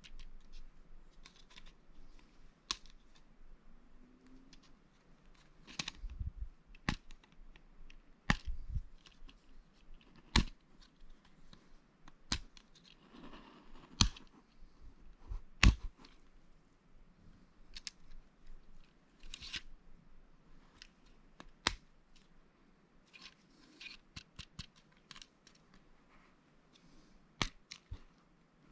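Lego bricks being handled and pressed together: irregular sharp plastic clicks and snaps, a few louder than the rest, with a brief rustle of loose pieces near the middle.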